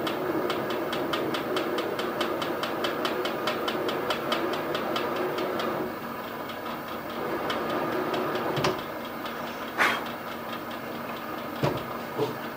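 Milling machine spindle driving a counterbore cutter into a brake caliper's threaded hole: a steady hum with regular ticking about four or five times a second. About six seconds in the cutter is drawn out of the cut and the sound drops to the lighter running of the machine, with a few knocks and one sharp clank near the end.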